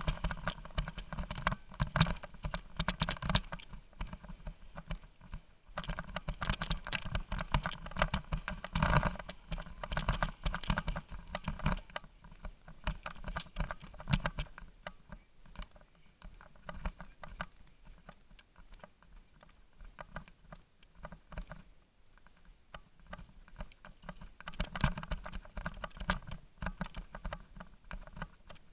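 Dense, irregular clicking and rattling as a bicycle and its mounted camera jolt over a rough dirt trail on a downhill run. It is heavier in stretches near the start, a little before the middle, and near the end, and lighter in between.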